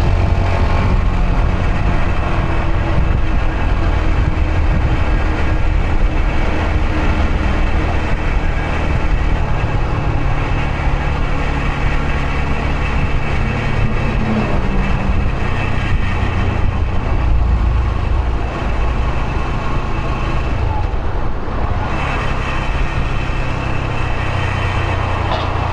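Yamaha YBR125's single-cylinder four-stroke engine running while riding through city traffic, its note rising in the first second as it accelerates, over a steady rush of road and traffic noise.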